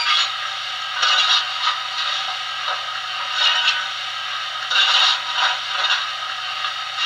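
Steam-locomotive sound effects (YouChoos J11 sound project) from a Zimo MX644 DCC sound decoder, played through the model's small round tender speaker: uneven bursts of hissing and scraping, one every second or so.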